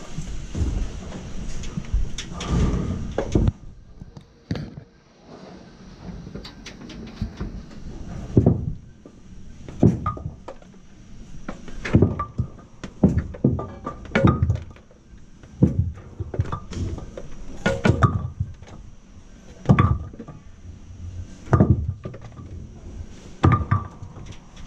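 Hollow knocks and thumps inside a Brunswick bowling pinsetter. They come about every one to two seconds from about eight seconds in, over a faint steady high whine. The first few seconds hold a louder rumbling clatter.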